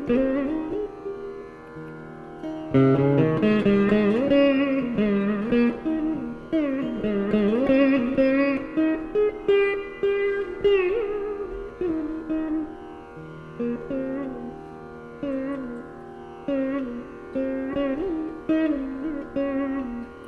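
Saraswati veena playing a Carnatic krithi in raga Khamas: plucked notes whose pitch slides and bends in ornaments between strokes, with a steady low drone underneath at times.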